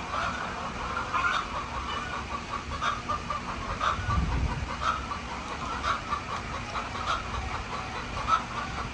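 A flock of chickens clucking, many short overlapping calls in a steady chatter, with a brief low rumble about four seconds in.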